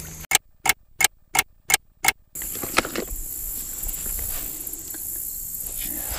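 Six short, sharp beeps, about three a second, with dead silence between them. Then a steady chorus of crickets and other insects chirring.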